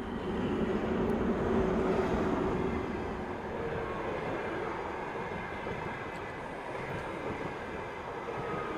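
2ES4K electric locomotive passing, loudest with a low hum in the first few seconds, followed by its passenger coaches rolling by with steady wheel-on-rail noise.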